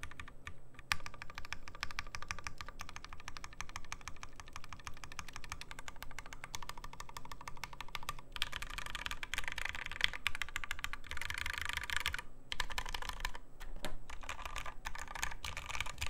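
Fast, steady typing on a mechanical keyboard, a top-mount FBTKL with Gateron Ink switches in a flexible POM plate on a solder PCB: a quick run of key clacks with a brief pause near the three-quarter mark.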